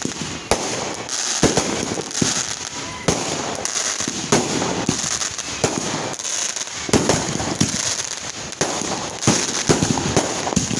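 Fireworks going off in rapid, irregular succession: many sharp bangs, several a second at times, with steady crackling between them.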